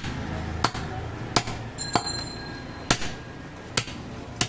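Butcher's cleaver chopping through a goat leg on a wooden stump chopping block: about seven sharp strikes at uneven spacing, roughly one every half second to a second.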